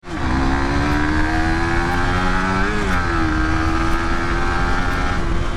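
Motorcycle engine running at high revs while riding, its pitch climbing slowly and dipping briefly about three seconds in, over a low rumble of road and wind noise.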